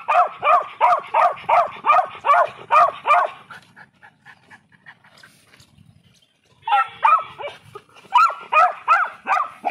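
Beagle puppy yipping in quick runs of high barks, about three a second: a run of about a dozen, a pause of a few seconds, then another run near the end.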